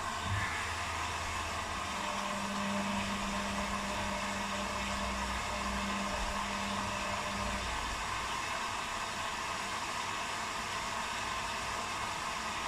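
Electrolux and Arctic front-loading washing machines running a quick wash, giving a steady whir and hiss of the drums turning with water inside. A low hum comes in about two seconds in and stops a little past halfway.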